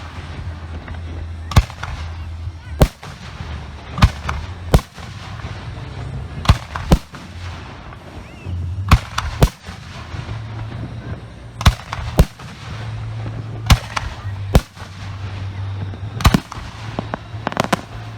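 Professional aerial firework shells going off in a display: a dozen or more sharp reports, about one a second and some in quick pairs, with a steady low hum underneath.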